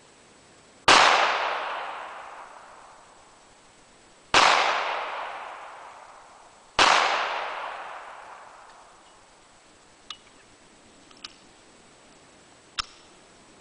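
Three shots from a Smith & Wesson .380 ACP pistol, the second about three and a half seconds after the first and the third about two and a half seconds later, each echoing and dying away over two to three seconds. Three faint sharp clicks follow near the end.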